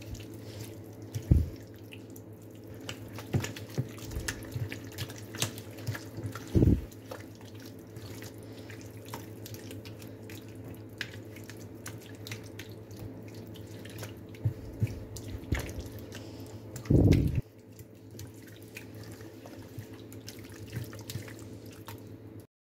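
A hand squelching raw beef cubes through a wet yogurt-and-spice marinade in a bowl: irregular squishing and splatting, with a few louder dull thumps, over a steady low hum. It cuts off suddenly near the end.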